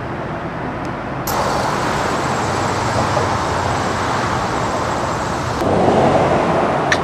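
Steady rush of road traffic on a multi-lane highway, cars passing without a break. It grows louder and brighter about a second in, and turns into a duller, fuller swell near the end.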